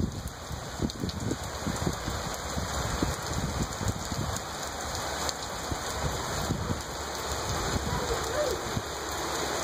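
Heavy downpour: a steady hiss of pouring rain with many separate drops striking close by.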